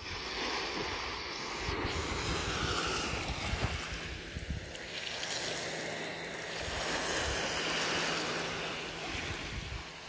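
Small surf washing in and out over a sandy beach: a steady hiss of breaking water that swells and eases twice.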